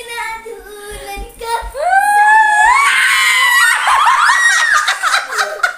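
High-pitched playful shrieking and squealing of a woman and a young girl laughing, gliding up and down in pitch. It starts about two seconds in and runs loud almost to the end, after softer voices.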